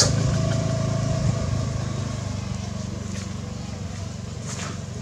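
A small engine running steadily, slowly growing fainter, with a sharp click at the very start.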